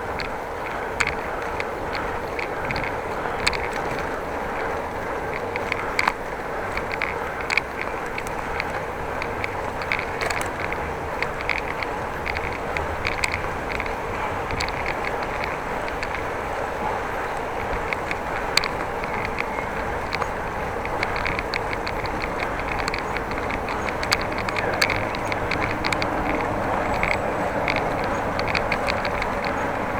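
Bicycle riding on a city road: a steady rolling and wind noise, with frequent short clicks and rattles from the bike at uneven intervals.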